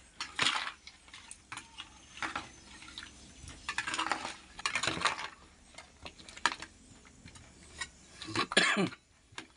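A metal spoon scraping and knocking in a plastic bowl as raw fish steaks are stirred with salt and seasoning, in irregular scrapes and clicks, loudest near the end.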